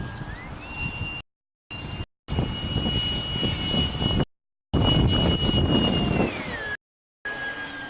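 Electric ducted-fan whine of an RC Sniper jet in flight: its pitch rises about half a second in, holds high, then glides back down near the end, over a low rumble of wind. The audio cuts out completely several times.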